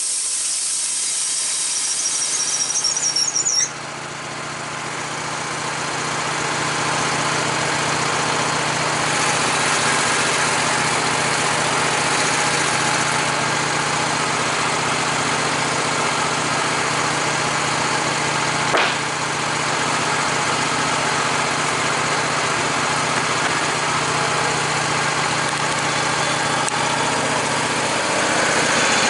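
Wood-Mizer LT15 bandsaw mill's gasoline engine running steadily. For the first few seconds a high, wavering squeal comes from the band blade finishing its cut through white oak, then cuts off suddenly. One short knock comes a little past the middle.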